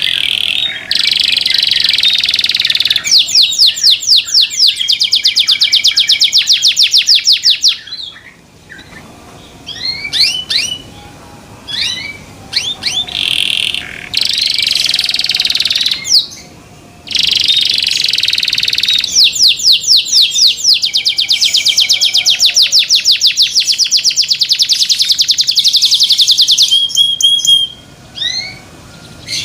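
Domestic canary singing loudly: long phrases of fast rolling trills, two of them running for several seconds, broken by short chirps and brief pauses.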